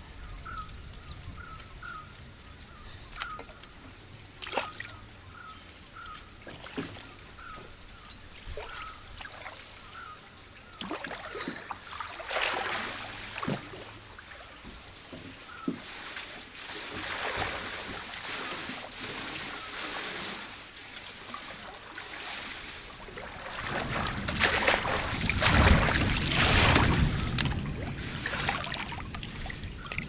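Water splashing and lapping as a person swims through a pool, growing louder and loudest near the end as the swimmer reaches the pool edge. Through the first half a bird repeats a short, high call over and over.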